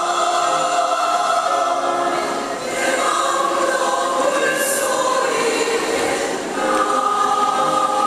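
Large women's choir singing a Buddhist choral song in sustained chords, with short breaks between phrases about two and a half and six and a half seconds in, then a long held chord near the end.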